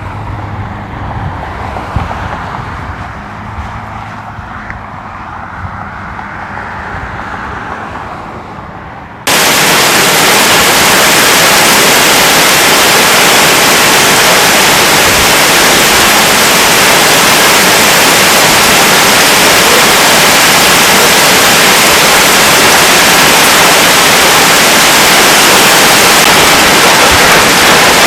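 Severe thunderstorm noise: a moderate rumble with a low engine-like hum at first, then about nine seconds in a sudden switch to a loud, steady roar of wind-driven hail and rain.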